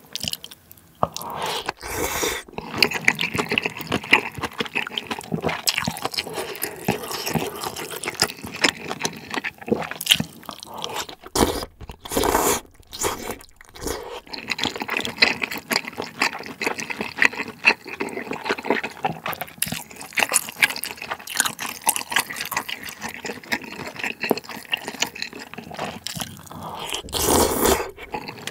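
Close-miked wet chewing and slurping of spicy malatang with Chinese glass noodles and dried tofu strips, a steady crackle of mouth sounds with a few louder slurps about 2 seconds in, around 12 seconds and near the end.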